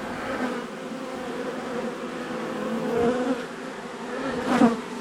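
Many honeybees buzzing steadily around a colony being cut out of a wall, with one buzz swelling briefly and changing pitch near the end as a bee passes close.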